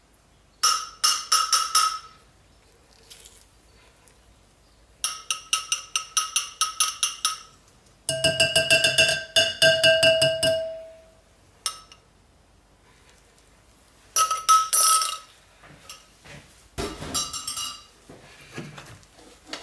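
A utensil clinking rapidly against a ringing container in five short bursts, the container's ring fading out after the longest burst: hand-stirring lye water into soapmaking oils.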